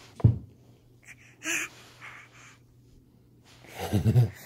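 A baby's breathy gasps and a short low grunt close to the microphone, with a sharp bump about a quarter second in.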